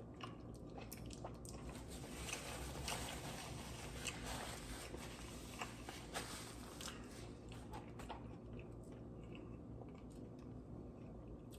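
A person biting and chewing fried chicken and potato wedges, with small crunches and mouth clicks scattered throughout at a low level.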